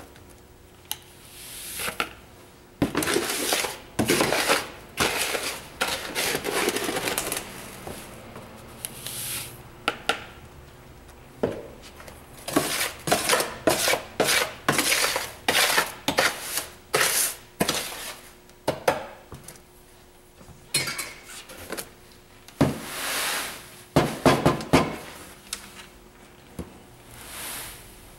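Lavender bath salts, a mix of Epsom salt and sea salt, being scooped from a plastic tub and poured into a large glass jar. Repeated short rushes of salt crystals pouring in, with clinks and knocks against the glass between them.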